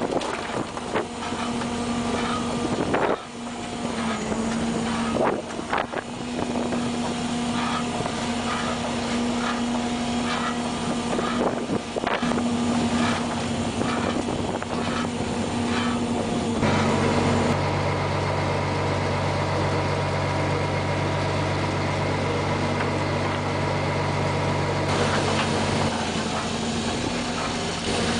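Fishing boat's engine and pot-hauling machinery running steadily, with sharp clanks and knocks as crab pots come aboard. About two-thirds of the way through, the sound changes to a lower, steadier machine hum.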